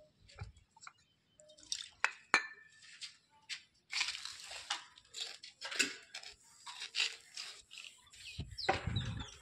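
A cotton cloth rubbed in short scuffing strokes along a polished granite moulding edge, applying moulding shiner. About two seconds in, a few sharp clinks with a brief ring.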